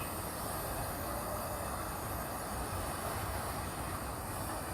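Wind buffeting the microphone outdoors: a steady low rumble with a faint high hiss.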